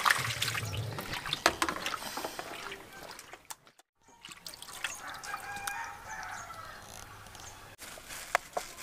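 Water poured from a steel mug splashing over cut snakehead fish pieces on a concrete floor while hands rinse them, with many small wet slaps and drips; it stops short after about three and a half seconds, leaving a quieter stretch.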